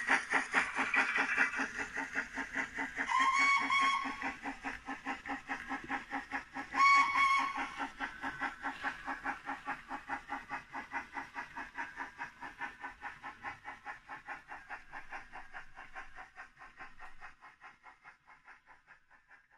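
OO-gauge ROD Baldwin 0-6-0T model's DCC sound decoder playing steam-engine chuffs through its onboard speaker, an even rhythm of about three or four a second. Two short whistle blasts come about three and a half and seven seconds in. The chuffing fades away as the locomotive pulls its train off, and it dies out a couple of seconds before the end.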